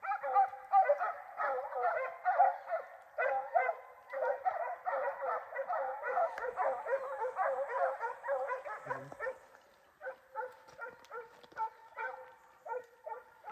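A hunting hound giving tongue on a scent trail: rapid, almost unbroken high yelping barks that pause briefly about nine and a half seconds in, then carry on more sparsely.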